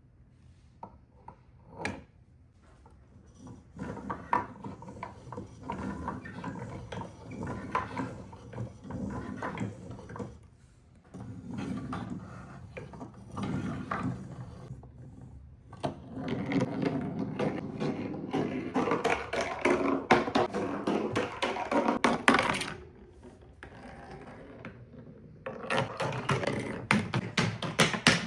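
Marbles rolling and clattering down a marble run track: dense rapid clicking that builds a few seconds in, eases off briefly twice, and is busiest past the middle and again near the end.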